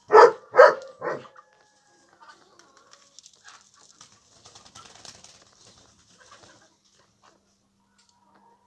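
A dog barks three times in quick succession, with faint scattered noises after.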